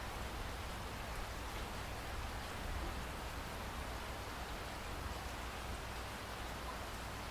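Steady rainfall: an even hiss of rain with a low rumble underneath, no single drops standing out.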